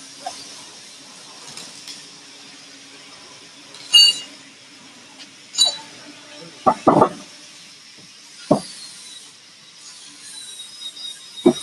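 Steady machine hum in a factory workshop, broken by a series of sharp metallic clinks and knocks. One clink, about four seconds in, rings briefly.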